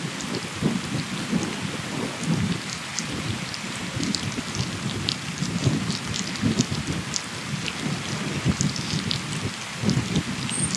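Wind rumbling and buffeting on the microphone of a camera moving along with road cyclists, swelling and dipping, with scattered light crackles over it.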